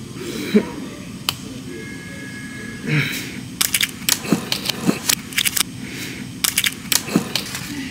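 A small plastic capsule is twisted and pried open by hand, giving a quick run of sharp plastic clicks and cracks over several seconds.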